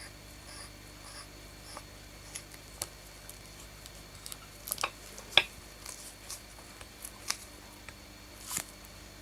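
Scattered light clicks and taps of small parts and tools being handled, with a sharper click about five and a half seconds in.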